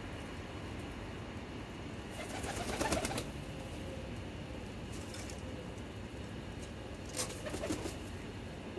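Domestic pigeons cooing over a steady background hiss, in two louder bouts with sharp clicks, about two seconds in and again near the end.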